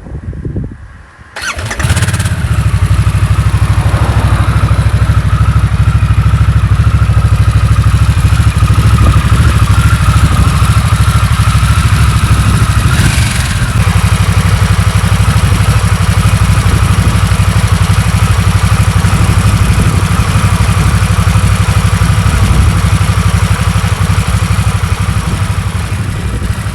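Harley-Davidson Nightster's liquid-cooled Revolution Max 975T V-twin started with the electric starter, catching about a second and a half in, then idling steadily and loudly.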